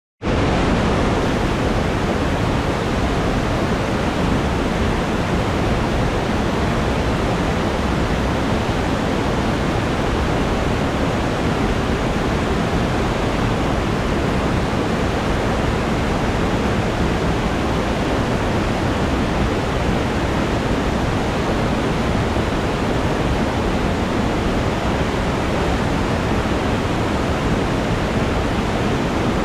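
Waterfall pouring into a rocky gorge: a steady, even rush of falling water that starts right at the opening and does not change.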